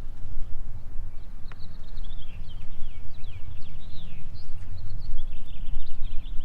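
Birds chirping repeatedly in quick, short calls over a steady low rumble.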